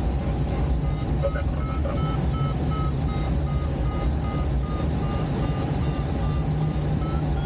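Steady rush of airflow over a glider in flight, with the cockpit's audio variometer beeping in short tones, about two or three a second, its pitch rising near the end as the climb indication increases.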